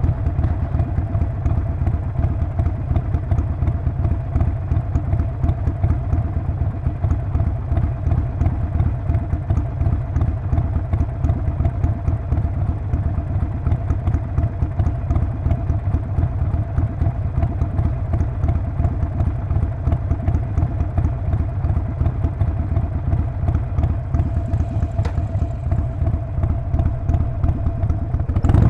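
Harley-Davidson Sportster Forty-Eight's air-cooled 1200 cc V-twin running steadily through its exhaust. It makes a dense, low, rapid pulsing with no revving up or down.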